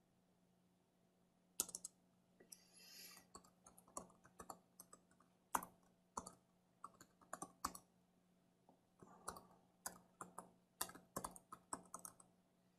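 Faint computer-keyboard keystrokes, typed in short irregular runs, starting about a second and a half in.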